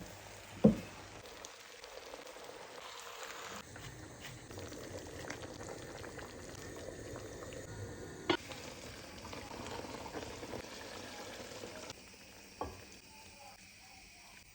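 Katlama dough frying in hot oil in a pan, with a steady crackling sizzle. A few sharp knocks cut through it: a loud one right at the start, another partway through and one near the end.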